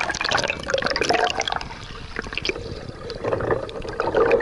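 Lake water sloshing and gurgling over a half-submerged camera's microphone, with bubbling as it goes under the surface near the end.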